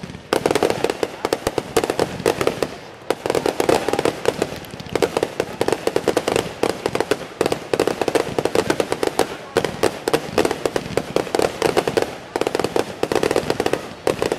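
Aerial fireworks display firing in a rapid, continuous barrage, many sharp bangs and crackles a second, with short lulls about three and twelve seconds in.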